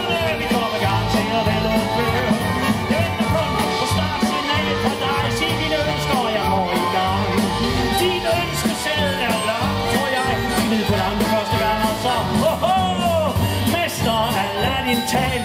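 Live big band playing a song, with trombone, drum kit and strings.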